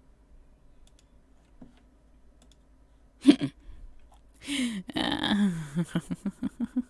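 A few faint mouse clicks over a low hum. About three seconds in, a woman gasps sharply, then lets out a long falling groan that breaks into a run of short quick laughs, a dismayed reaction.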